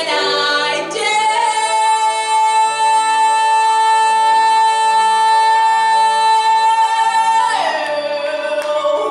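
Solo female voice belting a musical-theatre song: a short sung phrase, then one long high note held for about six seconds that falls away near the end, over quieter instrumental accompaniment.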